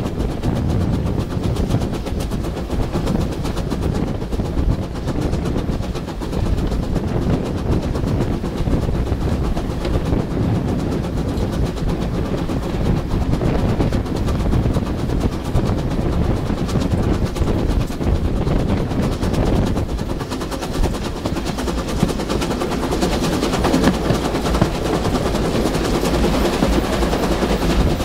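Steam tank locomotive Sir Berkeley, a Manning Wardle 0-6-0 saddle tank, running along the line, its rapid exhaust beats mixed with the rattle and clatter of the train on the track, heard from the open window of the coach behind.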